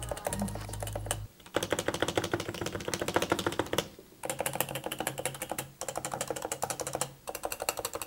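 Topre switches of a Realforce R2 keyboard pressed in fast runs, including the larger keys, making a dense clacking in several bursts with short pauses. The bigger keys clack much louder, with what sounds like some rattle, which she puts down to pressing one side of the key rather than evenly.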